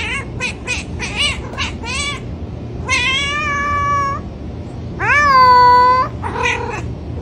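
Tabby cat meowing over and over: a run of short, chirpy meows, then two long drawn-out meows about three and five seconds in, the second the loudest, and a shorter meow near the end.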